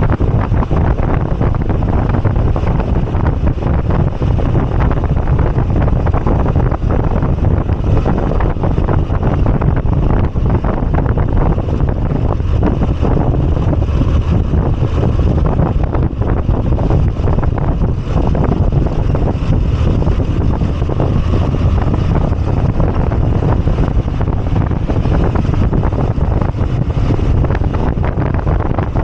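Moto Guzzi V85TT motorcycle on the move: steady wind rushing over the microphone, mixed with the running of the bike's engine and its road noise. It keeps an even level throughout.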